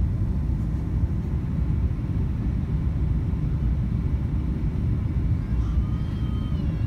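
Steady low rumble of a jet airliner in flight, with engine and airflow noise heard from inside the cabin.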